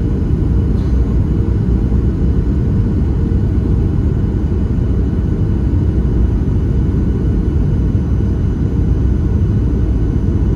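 Steady low rumble of engine and airflow noise heard inside the cabin of a Boeing 737-700 on approach, from a window seat beside the CFM56-7B engine. The noise holds level, with no change in pitch.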